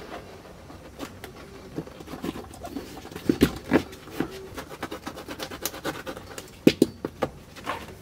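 Utility knife cutting through automotive carpet while the carpet is tugged and shifted: a run of irregular short scratches, rasps and ticks, the sharpest around three and a half and near seven seconds in.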